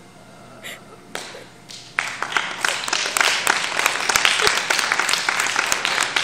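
Audience applauding, breaking out suddenly about two seconds in after a few faint knocks, and going on strongly.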